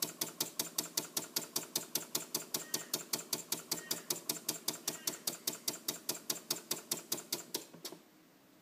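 An engine making an even, rapid clapping knock, about five a second, that stops fairly suddenly about eight seconds in.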